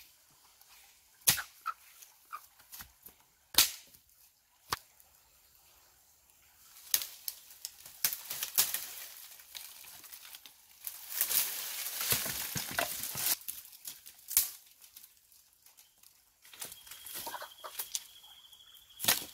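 Dry dead sticks snapping with sharp cracks, scattered through the clip, and a long stretch of dense crackling and rustling in the middle as dry branches and twigs are pulled and broken out of a tree.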